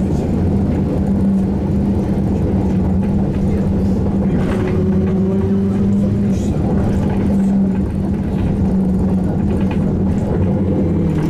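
Cabin noise inside a SVARZ-MAZ-6235.00 trolleybus: a steady low hum with rumble underneath and a few faint rattles, and a faint slightly rising whine around the middle.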